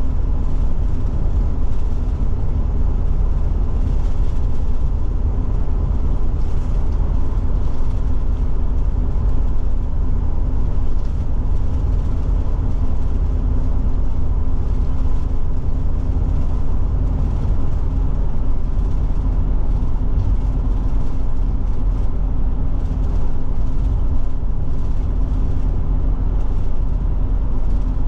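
Forest River Forester motorhome cruising on the highway: a steady drone of engine and tyre rumble, heaviest in the deep bass, with a faint steady hum on top.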